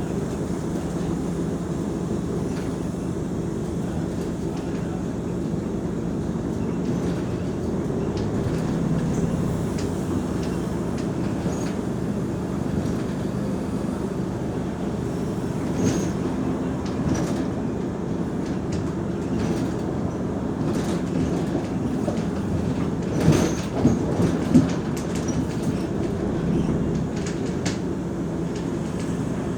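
Mercedes-Benz O345 Conecto G articulated city bus under way, its diesel engine giving a steady drone over rolling noise. Scattered rattles run throughout, with a few sharp knocks about 23 to 25 seconds in.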